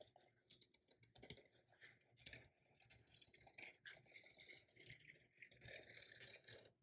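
Faint, irregular scratching and clicking of a razor blade scoring a vinyl window decal along the edge of the glass.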